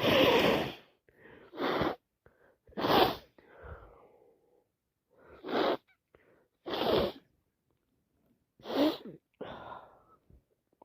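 Repeated wet sneezes and sniffs from a person with a heavy head cold: about six short bursts a second or two apart, the first, right at the start, the loudest.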